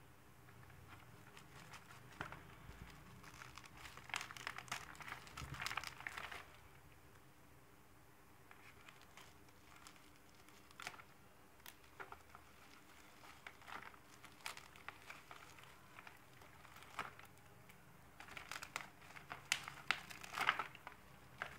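Bubble wrap crinkling and crackling as it is handled and cut open with scissors. It comes in two louder clusters, about four seconds in and near the end, with scattered sharp clicks and snips between.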